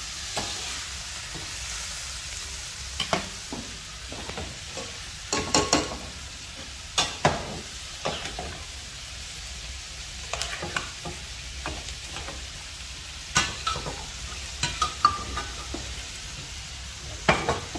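Food frying and sizzling in a pan over a wood fire: a steady hiss with sharp clicks and knocks now and then.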